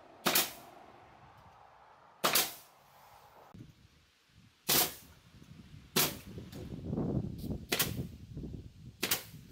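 Pneumatic nailer firing nails through balusters into a wooden strip: six sharp shots, one every one to two and a half seconds.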